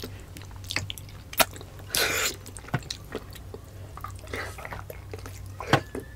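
Close-miked eating sounds: wet mouth clicks and smacks, with a short loud slurp about two seconds in and a softer slurp a little past halfway, as soup is sipped and food is sucked and chewed.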